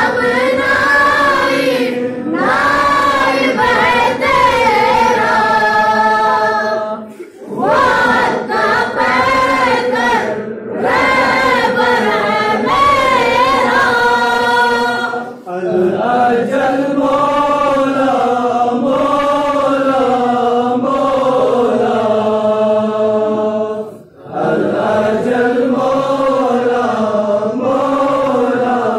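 Group of male voices chanting a devotional tarana together in long melodic phrases, with three brief pauses for breath.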